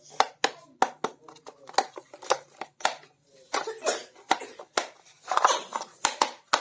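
Small plastic pieces of a miniature toy kitchen set clicking and tapping together in quick, sharp clicks, about three a second, with a short rustle about five seconds in.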